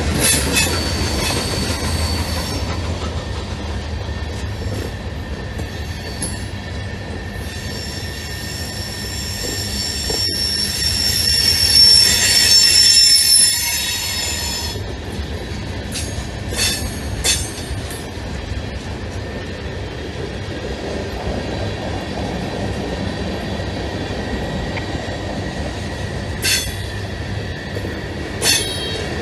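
Freight cars of a mixed manifest train rolling past at close range: a steady rumble of steel wheels on rail, with high-pitched wheel squeal that grows to its loudest about twelve seconds in, then fades. A few sharp knocks come later on.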